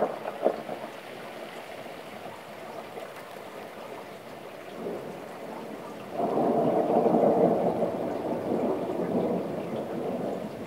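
Steady rain with a thunder rumble that breaks in suddenly about six seconds in and slowly dies away over the next four seconds. Two sharp cracks come right at the start.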